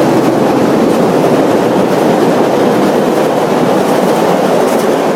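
Train passing close by: a loud, steady rumble of wheels on the rails.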